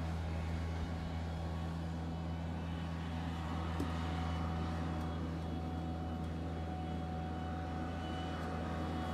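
Steady low hum of room noise, with a faint tick about four seconds in.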